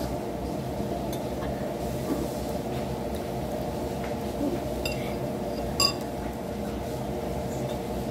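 Steady low hum in the room with a few faint clicks of tableware, and one sharp ringing clink of a dish or glass near the six-second mark.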